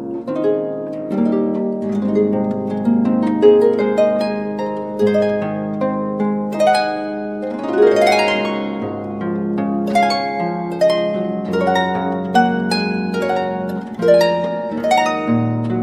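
Gentle instrumental background music of plucked, harp-like notes over held low notes, with a rising sweep of notes about eight seconds in.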